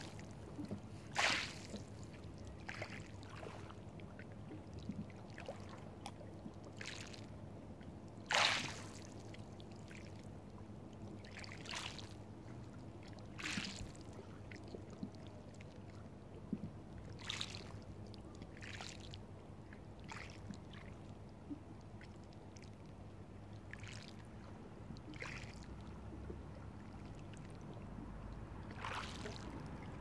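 Small waves lapping on a pebble shore: each ripple washes in with a short splash every one to three seconds. The loudest come about a second in and about eight seconds in.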